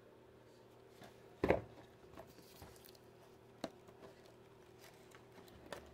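Handling of a hand-stitched leather deck box: a thump about a second and a half in, then a few light clicks and rustles as its flap is lifted.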